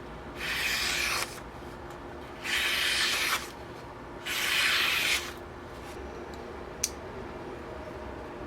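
Three strokes of a knife blade drawn across a leather strop charged with honing compound, each a rubbing scrape just under a second long, followed by a single sharp click.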